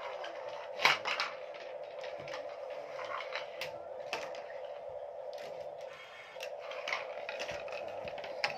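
Scattered clicks and knocks of plastic toys and glass marbles handled on a wooden floor, the loudest about a second in, over a steady hum that briefly drops out near the middle.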